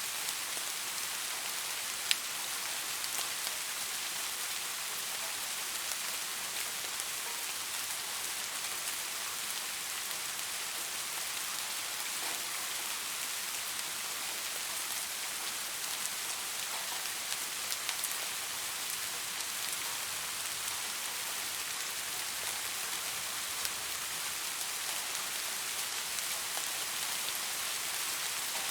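Steady rain falling on leaves, an even hiss with scattered separate drop ticks and one sharper drip about two seconds in.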